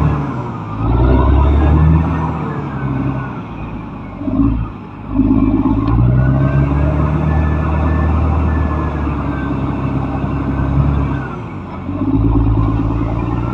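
Caterpillar D6R XL bulldozer's diesel engine running under load, its note easing off and building up again several times as it works. A fainter whine rises and falls above the engine.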